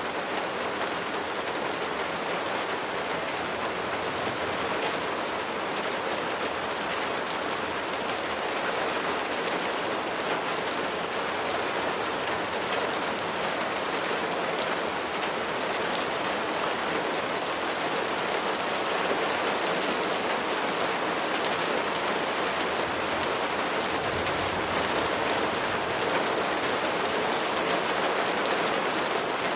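Steady heavy rain falling on a surface: a dense, even wash of noise with many individual drop ticks.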